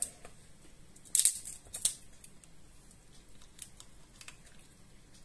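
Cooked king crab shell cracking and snapping as a leg piece is broken apart by hand. A few sharp, crisp cracks fall in the first two seconds, the loudest about a second in, followed by faint small clicks.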